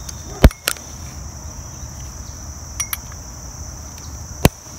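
Steady high trill of crickets chirping, broken by a few sharp clicks: a loud one about half a second in, a lighter one just after, a faint pair near three seconds, and another loud one near the end.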